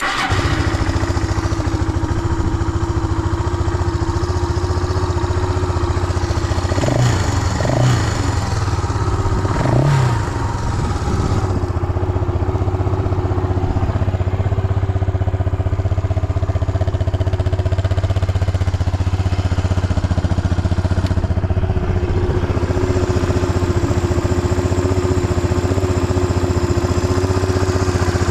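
Suzuki Goose 350's single-cylinder four-stroke engine firing up on a cold start and settling into a steady idle. It gets a few short blips of throttle about seven to ten seconds in, revving up cleanly with no abnormal noise.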